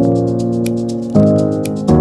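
Background music: sustained keyboard chords that change about a second in, with a light high tick about once a second.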